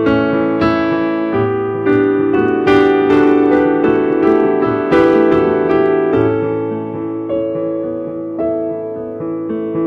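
Solo piano playing slow chords, each struck and left to ring and fade before the next.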